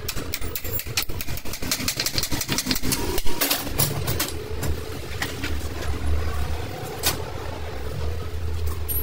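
Garage work noise: a low steady rumble with many sharp clicks and knocks, densest in the first three seconds or so.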